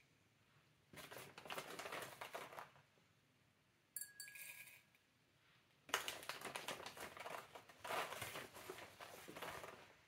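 Plastic bag of BTMS 25 pellets crinkling and rustling as a plastic measuring spoon scoops pellets out of it, in two stretches. A short clink with a brief ring comes about four seconds in.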